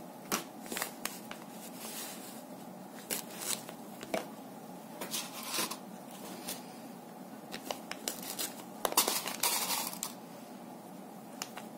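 Hands handling crochet lace motifs pinned onto a cloth backing: scattered soft rustles and light clicks, with a longer rustle of cloth about nine seconds in.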